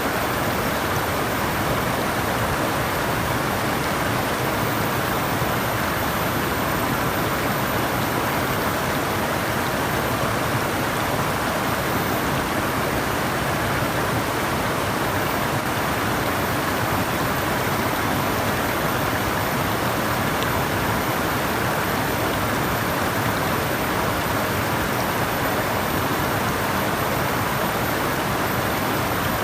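Flowing water: a steady, even rush of running water that does not change.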